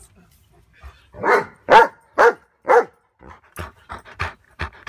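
Dog barking: four loud barks about half a second apart starting about a second in, then a run of quieter, shorter barks.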